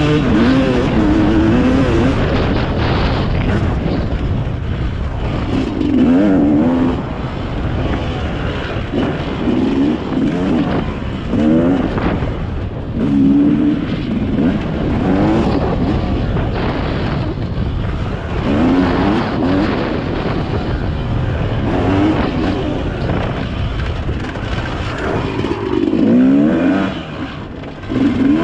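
Dirt bike engine revving up and easing off over and over as the rider works the throttle along the trail, its pitch climbing and dropping every second or two over a steady rush of wind and riding noise.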